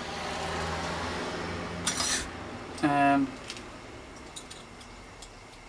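Light metallic clinks and rattles of bicycle handlebar parts being handled, after a sliding swish over the first two seconds. A short pitched note sounds about three seconds in and is the loudest thing, followed by a few faint ticks.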